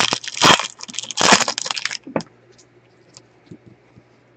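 Wrapper of a 2020 Bowman baseball card pack being torn open and crinkled, loudest twice in the first two seconds. A sharp click follows, then faint clicks as the cards are handled.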